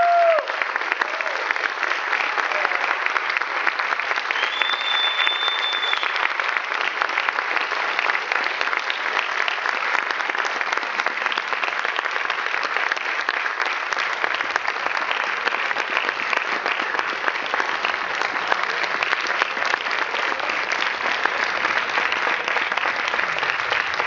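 Audience applauding steadily, a dense continuous clapping. A brief high whistle cuts through about five seconds in.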